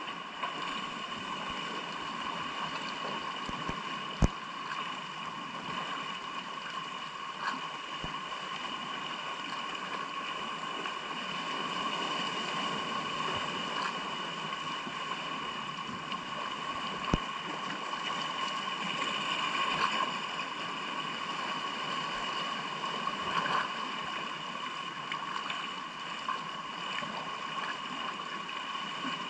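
Steady wash of sea water and surf around shoreline rocks, with a couple of short sharp knocks, about four seconds in and again near the middle.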